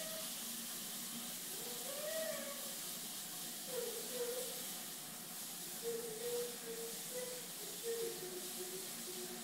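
A voice singing in short, drawn-out pitched notes, a rising-and-falling note about two seconds in and a row of notes stepping down in pitch near the end, over a steady hiss.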